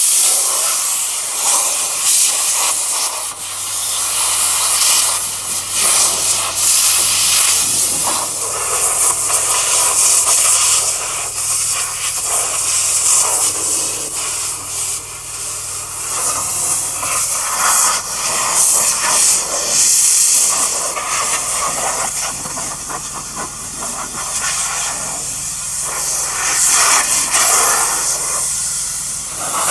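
Compressed-air lance blasting dust off farm machinery: a loud, rushing hiss that surges and eases every few seconds as the nozzle moves. A steady low hum runs underneath.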